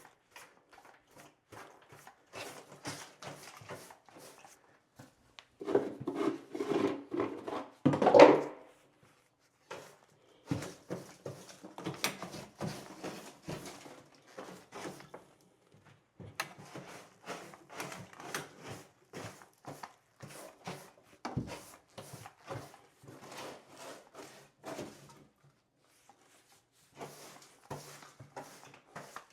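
Debris and wood scraps being scraped up and cleared by hand off a subfloor under a removed bathroom vanity: irregular scraping, rubbing and light knocks, with a louder clatter about eight seconds in.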